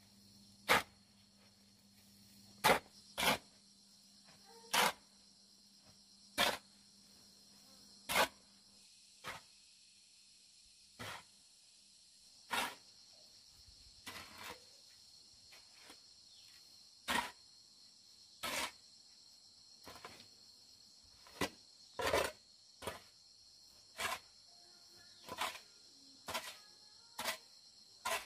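Shovel scooping and turning a pile of sand and gravel on a concrete floor: a short sharp scrape with each stroke, about one every one and a half seconds. Insects chirr steadily in the background.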